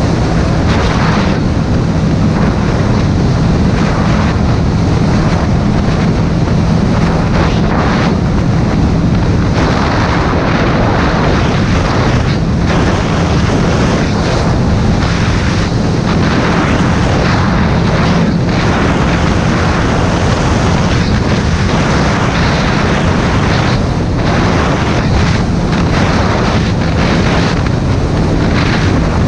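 Motorcycle engine running at a steady cruise, its low drone holding one pitch, under heavy wind rushing and buffeting over the microphone.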